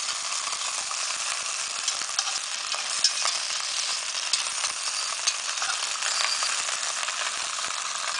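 Ribs sizzling as they sear in a cast-iron dutch oven: a steady frying hiss with scattered small pops and clicks.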